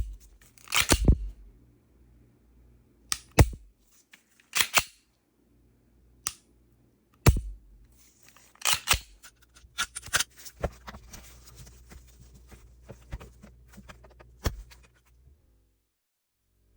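Glock 43X pistol being dry-fired and handled: a dozen or so sharp metallic clicks at irregular intervals, some in quick pairs or clusters, with quieter handling noise between.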